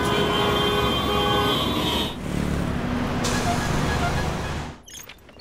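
Heavy road traffic with car horns honking over the rumble for about the first two seconds, then the traffic rumble alone, which cuts off suddenly near the end.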